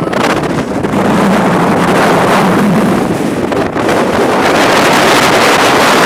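Loud, steady wind rushing over the microphone of a moving vehicle on an open road, with a faint engine hum low beneath it.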